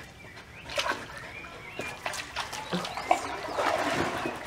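Belgian Malinois dipping its muzzle into pool water: irregular lapping and small splashes, a few each second.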